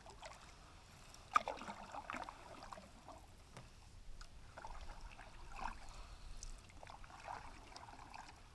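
Canoe paddle strokes: water swishing and trickling off the paddle every few seconds, with one sharp knock about a second and a half in.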